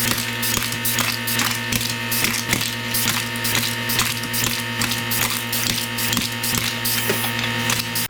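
Kanbol air-powered can crusher working through a run of aluminium cans: dense, rapid clicking and clattering over a steady hum. It cuts off abruptly at the end.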